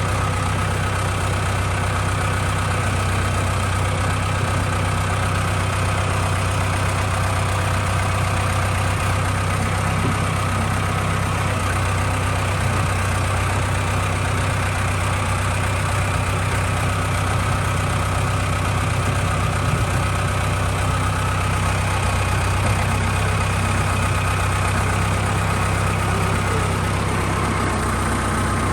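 A steady machine drone with a strong low hum, holding one pitch and level throughout.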